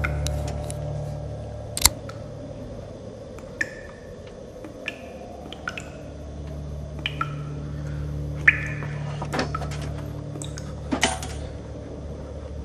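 Handheld camera handling noise: sharp clicks and knocks, the loudest about two seconds in and again past the middle, over a steady low hum, with several short high squeaks scattered through.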